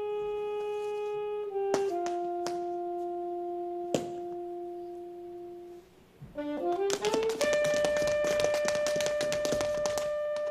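Pit orchestra's reed and brass players holding long sustained notes, then a quick rising run of notes past the middle that lands on a new held chord. A flurry of sharp clicks runs under the new chord.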